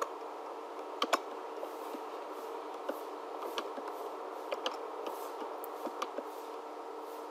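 Scattered faint clicks of a computer keyboard and mouse over a steady hum.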